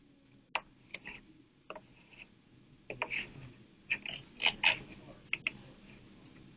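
Scattered light clicks and taps from a computer keyboard and mouse, about ten of them at uneven intervals, a few with a short rustly tail.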